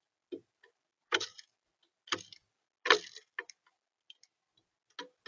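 Sharp taps and knocks on a bird feeder close to its built-in camera: three loud knocks about a second apart, with lighter ticks between them and near the end.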